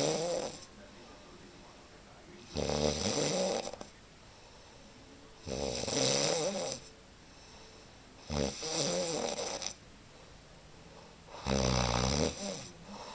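A person snoring during a nap: the end of one snore at the start, then four more long snores about every three seconds, with quiet pauses between breaths.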